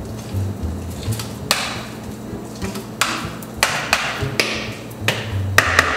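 Hard plastic knocks and taps, about one a second, as a food processor's feed-tube pusher and lid are handled between pulses.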